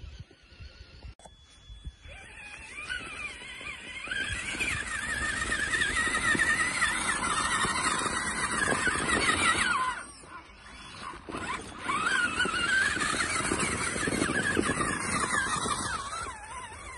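Electric motor of a radio-controlled truck whining, its pitch rising and falling quickly as the throttle is worked. It starts a couple of seconds in and drops away briefly about ten seconds in.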